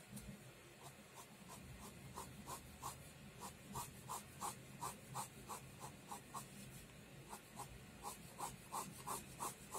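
Pen scratching across paper in quick, even sketching strokes, about three a second, with a short pause about two-thirds of the way through.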